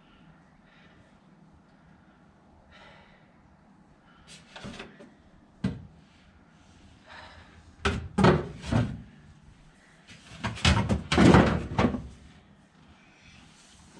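Handling noise inside a car: scattered knocks and clunks, with a sharp knock about six seconds in, a cluster of clunks near eight seconds and a longer, louder clattering scrape from about ten to twelve seconds.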